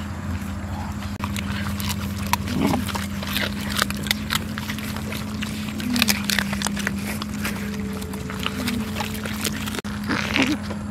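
Several dogs eating grilled fish, with irregular wet smacking and crunching clicks of chewing, over a steady low hum.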